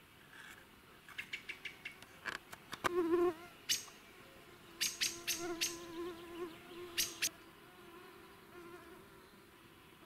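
A flying insect buzzing close by, its hum wavering in pitch from about three seconds in and fading near the end. Over it come a run of sharp clicks and taps: a quick train of small clicks about a second in, then louder ones around three, five and seven seconds in.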